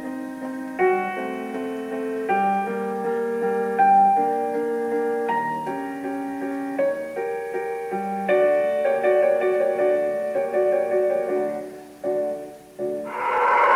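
Piano music, a steady run of sustained notes and chords. About a second before the end the piano stops and a loud steady rushing noise starts.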